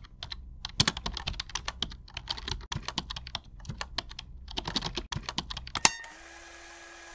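Rapid, irregular clicking of keyboard typing. About six seconds in it stops and a steady hiss with a low steady tone takes over.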